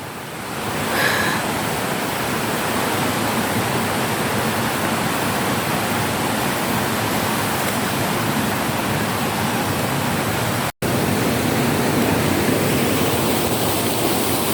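Flowing water rushing steadily along the stream near Iruppu Falls, with a momentary cut-out about eleven seconds in.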